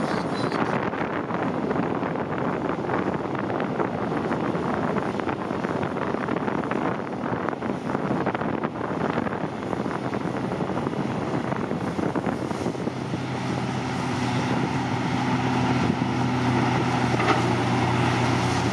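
Heavy diesel earthmoving machinery running: a Hitachi Zaxis 520 excavator working and swinging a bucket load over to a Komatsu HM400 articulated dump truck, a rough steady machine noise. About two-thirds of the way in, a steadier, slightly louder engine note comes in.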